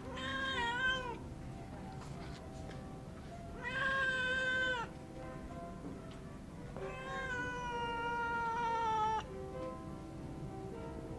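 Stray kitten meowing three times: a short wavering meow, then a second meow about four seconds in, then a longer drawn-out meow of about two seconds that falls slightly at the end.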